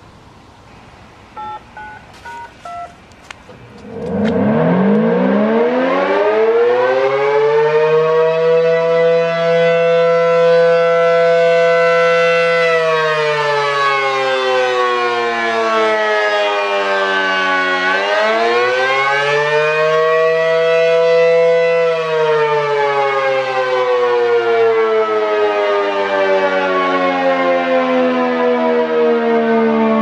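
A few short electronic activation tones about a second in. Then an ACA P-10 rotating outdoor warning siren starts and winds up, holds a steady high pitch, falls, rises again and falls once more toward the end.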